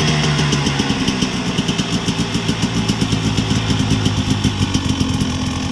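Enduro dirt bike engine idling at low revs with a rapid, uneven putter.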